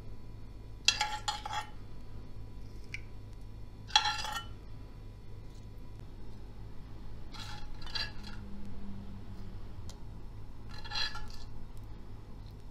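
A metal spoon clinks against cookware about four times, each clink with a short ring, as fried dried hot peppers are lifted from the oil and laid on the plated dish.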